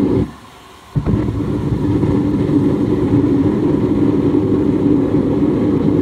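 A steady low mechanical roar, like a running motor or burner. It cuts out for under a second just after the start and comes back at the same level.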